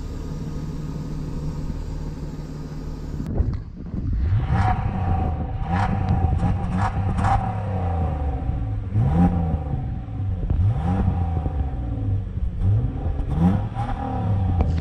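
BMW E46 320ci's 2.2-litre straight-six engine and exhaust idling steadily, then, after a cut about three seconds in, revved again and again: about six throttle blips, each rising in pitch and falling back toward idle.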